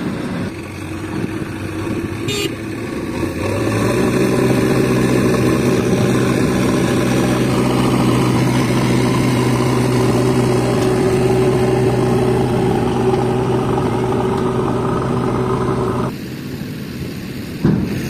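Heavy diesel engine revving up about three seconds in and held at high, steady revs under load, as a JCB backhoe loader pushes a girder-laden trailer truck stuck in mud. The revs drop suddenly near the end, followed by a brief thump.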